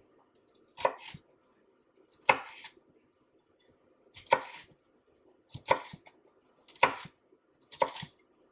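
Chef's knife slicing through a green bell pepper into thin strips and knocking on a wooden cutting board: six slow, separate cuts, one to two seconds apart.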